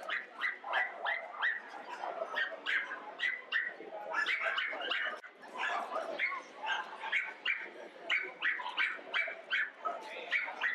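Dogs barking over and over, about two to three short barks a second, with a brief lull about five seconds in.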